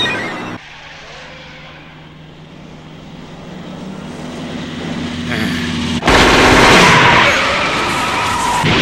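A siren cuts off in the first second. A truck's engine drone then grows steadily louder, and about six seconds in it gives way to a sudden loud burst of tyre screech and engine noise as the truck swerves hard around a corner, tipping onto two wheels.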